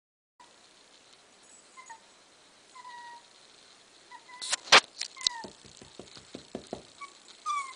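A young puppy whimpering in short, high squeaks that drop in pitch, a second or so apart. A few sharp clicks come just past halfway, the loudest sound here, followed by a quick run of light taps.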